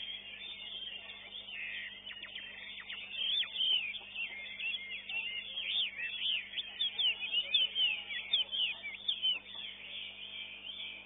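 Caged songbird singing a rapid, varied song of quick chirps and short whistled slurs, at its loudest from about three to nine seconds in.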